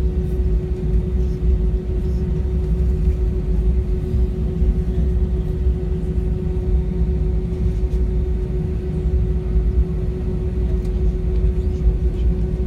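Jet airliner cabin noise: a steady low roar of the engines and airflow with a constant hum over it, unchanging in pitch and level.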